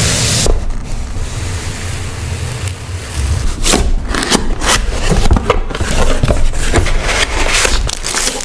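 Scraping and rustling of the speaker's cardboard packaging being handled, with many short clicks and knocks from about halfway, over a steady low rumble.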